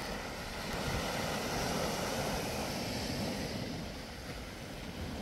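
Small waves washing onto the beach, swelling about a second in and easing off near the end, with wind rumbling on the microphone.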